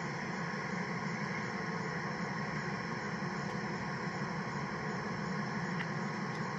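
A train running, a steady hum and hiss that does not change.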